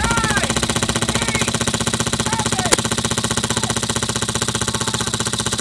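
Classic Army Stoner airsoft LMG with a Polarstar F2 HPA engine firing one long, rapid full-auto burst, an even stream of shots.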